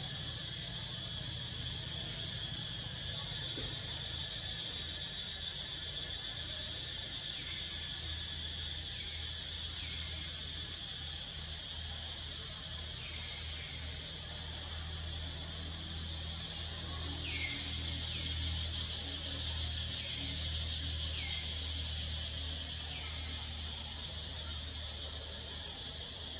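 Steady high-pitched insect chorus, with brief sliding chirps at irregular intervals every second or two.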